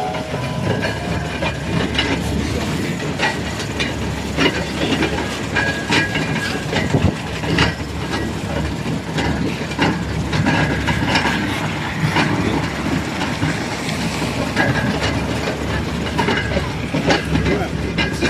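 Cabin noise of a moving vintage LiAZ city bus: a steady low engine and road rumble, with the body and fittings rattling and clicking all through.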